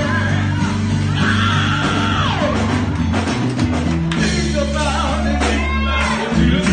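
Men singing into a microphone over instrumental accompaniment, with a steady bass line under the voices; a held vocal note slides down about two seconds in.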